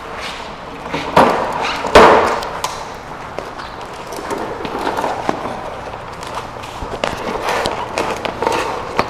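Knocks and clatter of a small bike being handled and taken down off a lift, with the loudest thump about two seconds in and scattered lighter knocks after it.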